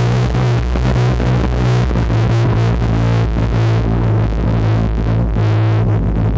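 Homemade electronic noise instrument played live: a loud, steady low drone under a harsh, dense layer of noise that shifts as the controls are worked.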